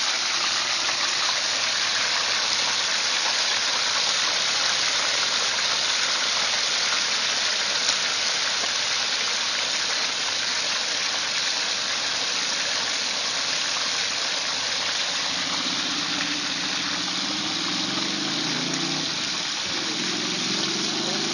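Whole turkey frying in a deep pot of hot oil: a steady sizzling hiss of bubbling oil.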